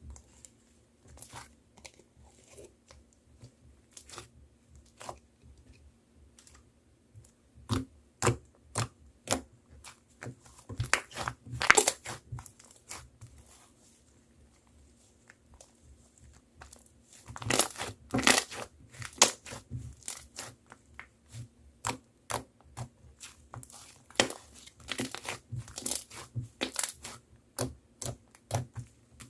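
Slime being squeezed and stretched by hand, giving sticky clicks, pops and crackles. They are sparse and faint at first, then come in louder rapid runs about a third of the way in and again from a little past halfway.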